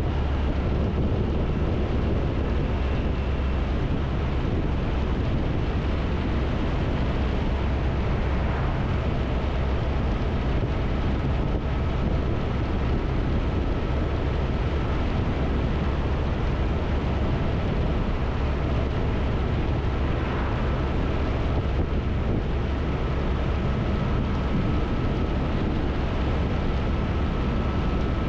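Triumph Tiger 1200's three-cylinder engine running steadily at cruising speed, with a low, even drone and wind rushing over the microphone.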